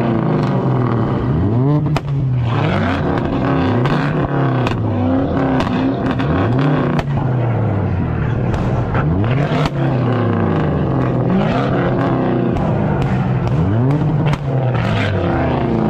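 A performance car engine being revved hard and let fall back, over and over, roughly every one and a half to two seconds, with sharp cracks between the revs.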